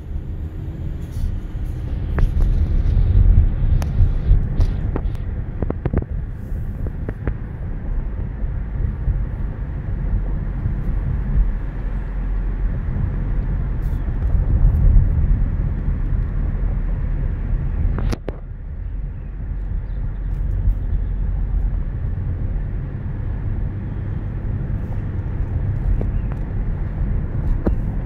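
Car interior road noise while driving at about 27 mph: a steady low rumble of tyres and engine heard inside the cabin. A few light clicks or knocks come in the first several seconds, and one sharp click about eighteen seconds in.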